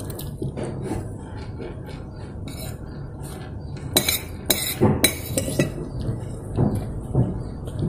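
Metal spoon and fork clinking and scraping against a plate of instant noodles, with a cluster of sharp clinks about halfway through.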